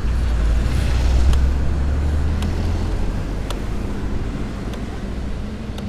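Low wind rumble on the microphone with road and engine noise from a moving Yamaha Aerox 155 scooter. The rumble is strongest over the first few seconds and eases off as the scooter slows, leaving a faint steady engine hum.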